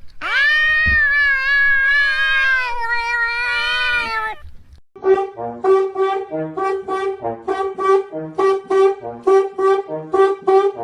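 A cat's one long, drawn-out meow lasting about four seconds. After a short gap, brass-band music starts: short bouncy notes repeated in a quick, even beat.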